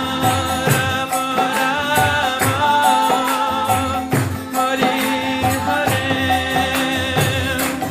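Kirtan music: a group chanting a mantra over sustained instrumental tones, with a steady beat of jingling hand percussion and deep drum strokes.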